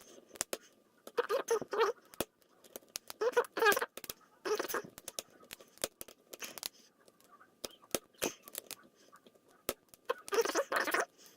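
Small sharp clicks and scrapes of a pick and tension tool working the pins of a West Coast Picks Banshee cylinder lock during single-pin picking, with short voiced sounds in between.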